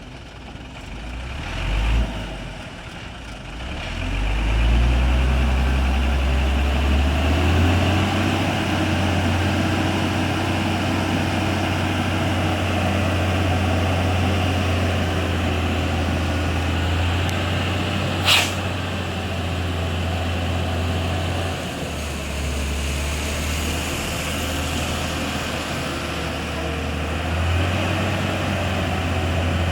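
Hino concrete mixer truck's diesel engine running steadily, its low hum swelling about four seconds in. A single short, sharp hiss of air comes about two-thirds of the way through.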